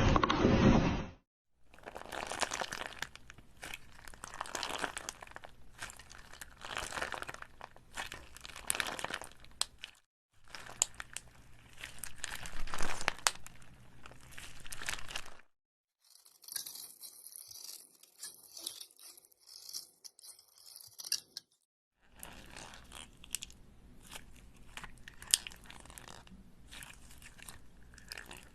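Crunching and crackling handling sounds in four separate stretches, split by short silent cuts. The third stretch is higher and hissier than the others.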